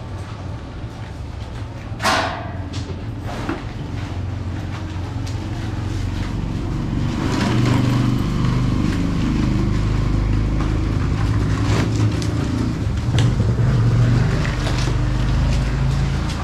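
An engine running steadily, growing louder from about six seconds in, with a short sharp falling squeak about two seconds in.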